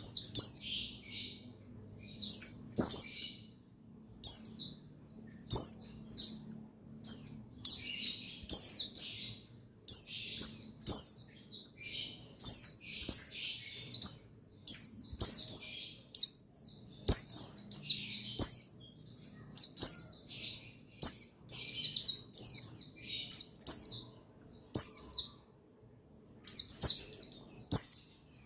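Buxtoni white-eyes (pleci buxtoni, oriental white-eye) chirping in a flock: many short, high, twittering phrases in quick succession, some overlapping. This is a lure recording meant to excite male white-eyes into singing.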